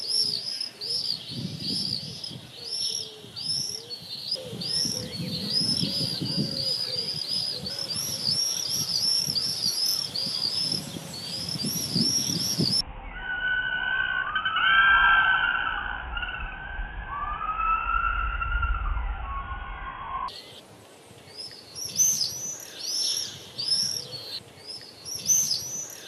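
Common swifts screaming: a dense run of short, shrill, high-pitched screams, overlapping one another. For several seconds in the middle the screams come out lower in pitch and duller.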